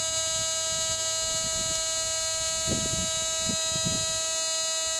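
Fisher Gold Bug metal detector giving a steady, unbroken electronic buzzing tone, with soft low handling knocks and rustles underneath.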